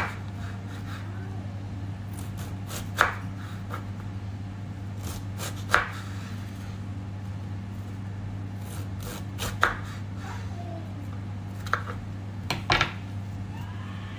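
Knife slicing red cabbage into strips on a cutting board: single sharp chops every two to three seconds, with a quick cluster of chops near the end. A steady low hum runs underneath.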